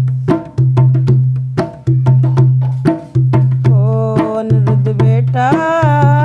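Music for a devotional bhajan. Sharp percussion strokes, about three a second, play over a steady low bass tone that pauses about every second and a half. A wavering melodic line comes in about two-thirds of the way through.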